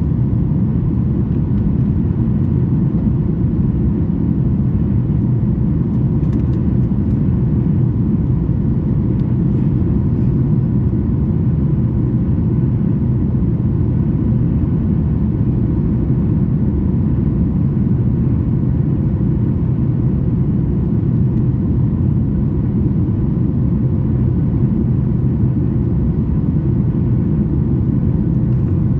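Steady low rumble inside the cabin of a Boeing 737 MAX 8 in flight, from its CFM LEAP-1B engines and the airflow, with a faint steady hum above it.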